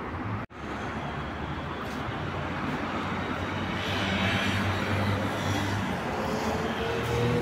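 Street traffic noise with a car engine, its low hum growing louder over the second half. The sound drops out for an instant about half a second in.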